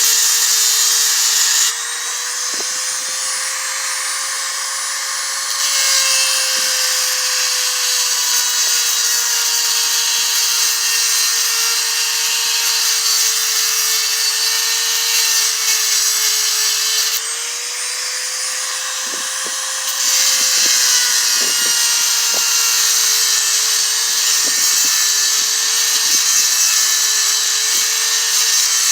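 Motor-driven grinding stone running with a steady whine while steel is held to it, giving a high hissing rasp. Twice, about two seconds in and again about seventeen seconds in, the steel comes off the stone for a few seconds: the hiss falls away and the motor's pitch rises slightly as the load comes off, then grinding resumes.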